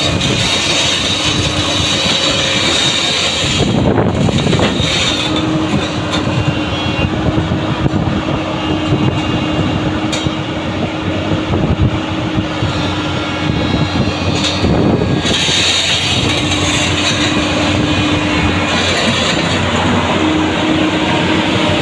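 JCB NXT tracked excavator's diesel engine running under load with a steady hydraulic whine that drops out and comes back a few times, over the rapid clatter of its steel tracks as it drives itself onto a low-bed trailer.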